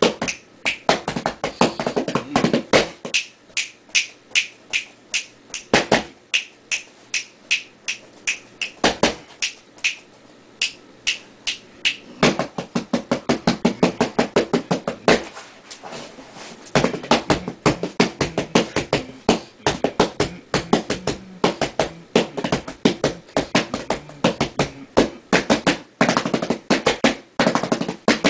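Hands drumming on a flat cardboard box: fast rhythmic patterns of slaps and finger taps, with quick runs of many taps a second and a brief pause about sixteen seconds in.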